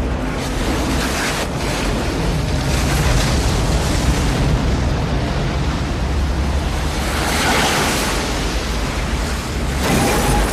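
A tornado's wind roaring past in a film sound mix: a loud, continuous rushing roar with a deep rumble beneath it. It swells about seven seconds in and again near the end.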